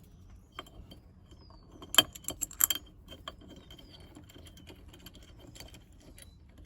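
Small metal clicks and clinks of screws and quick-release parts being handled, with a quick cluster of sharper clicks about two seconds in.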